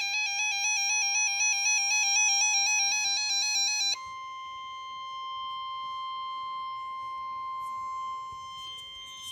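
NOAA weather radio sounding a tornado warning alert. A rapid warbling two-pitch electronic alarm plays for about four seconds, stops abruptly, and leaves the steady single-pitch warning alert tone, which carries on until the broadcast message.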